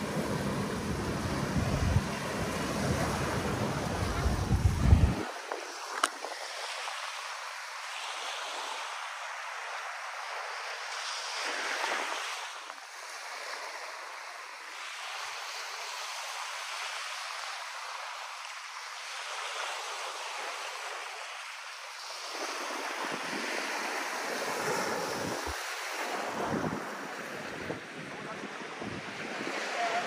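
Small waves breaking and washing up a sandy beach, a steady surf hiss. Wind rumbles on the microphone for the first five seconds, then stops suddenly.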